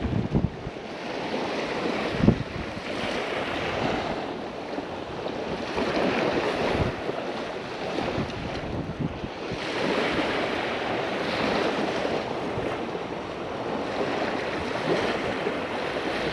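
Surf washing ashore in waves that swell and ease every few seconds, with gusty wind buffeting the microphone. A single thump about two seconds in.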